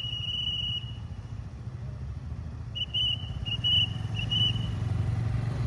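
Traffic police whistle: one long blast ending about a second in, then a quick string of about five short blasts around three to four seconds in. Under it runs the steady low rumble of traffic.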